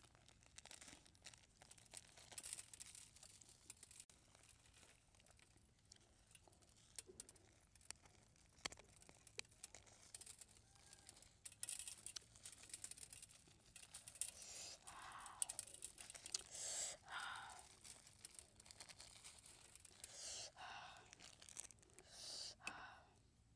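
Faint crinkling of a plastic bag and many small scattered clicks as chili seasoning is shaken out over a roasted pig head, with denser rustling in the middle and near the end.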